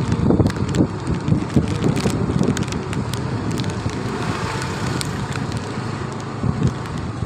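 Wind buffeting the microphone of a rider on a moving scooter, over the scooter's engine and tyre noise on the road. The gusting is strongest at the start and eases a little after the first second or two.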